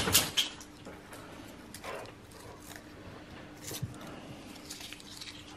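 Paper wrappers crinkling as razor blades are unwrapped by hand: a few short rustles, loudest right at the start, over a faint steady hum.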